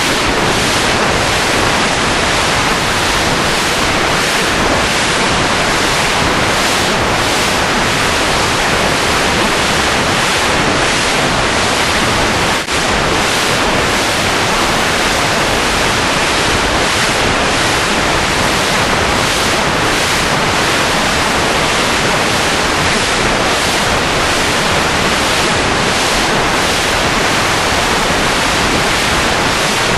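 Steady, loud rushing noise like static, even across high and low pitches, with no tone or beat in it; it drops out for an instant about 13 seconds in.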